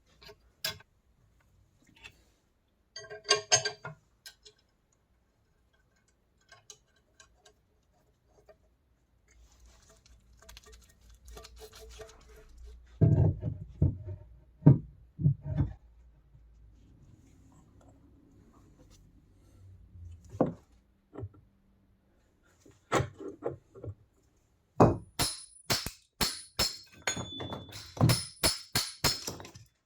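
Metal parts being handled in a workshop: scattered clinks and knocks, a ringing clink about three seconds in, a few heavy thuds in the middle, and a quick run of sharp clicks and clinks near the end.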